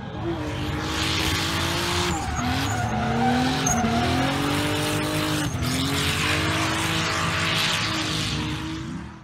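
A drifting car: the engine revs up and down over the steady hiss of the tyres squealing and skidding. It fades out at the very end.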